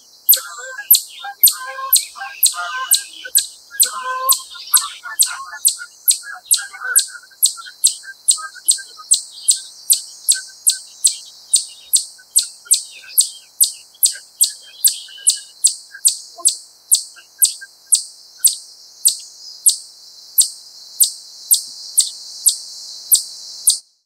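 Eastern chipmunk giving its repeated 'chip' alarm call: sharp, high, short chips in a steady, regular series, about two a second.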